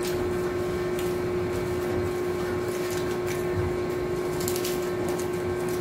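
Steady room hum with one constant tone, like a fan or electrical hum, and a few faint crunches as hard taco shells are bitten and chewed.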